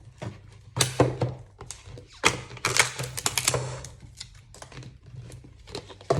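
Plastic toy packaging being handled and opened by hand: a series of irregular clicks, taps and crinkly scrapes, busiest in the middle.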